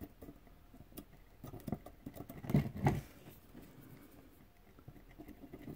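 Light handling noise at a workbench: scattered small clicks and taps of metal tools and the helping-hands clamp, with two louder knocks between two and three seconds in.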